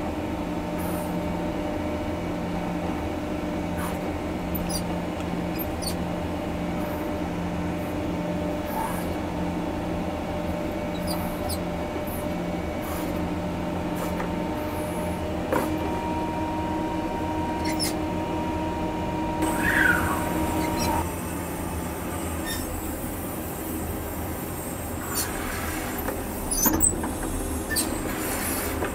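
John Deere 670G motor grader running steadily under load while blading, a constant diesel engine drone with a few light clicks and rattles. A brief rising squeak comes about two-thirds of the way in.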